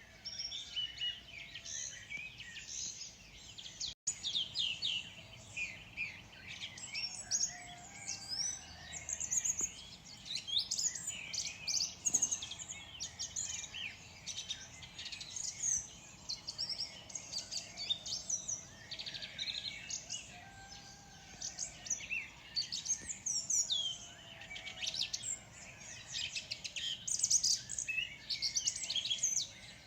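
Morning chorus of many small songbirds chirping and singing over one another, a dense stream of quick high chirps and short trills with no pause. A split-second gap comes about four seconds in.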